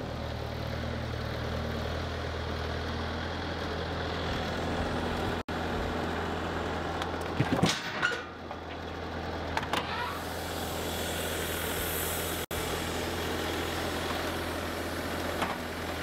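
Bobcat skid-steer loader's engine running steadily, with a few short knocks about halfway through.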